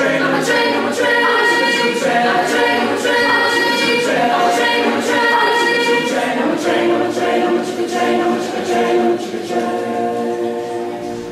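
Mixed group of young men and women singing a cappella in close harmony: short rhythmic chords at first, then a long held final chord from about six and a half seconds in that fades away near the end.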